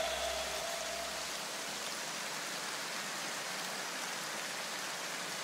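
Steady, even rain-like hiss. The last held notes of the electronic outro music die away under it in the first second or two.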